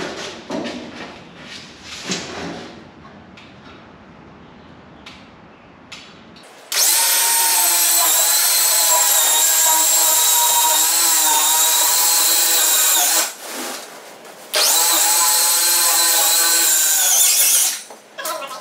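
Handheld cordless power saw cutting through a foil-faced rigid foam insulation board, giving a loud, high, steady whine. It starts about six seconds in and runs for about six seconds, stops briefly, then cuts again for about three seconds before winding down. Before the cutting there are a few quieter knocks of handling.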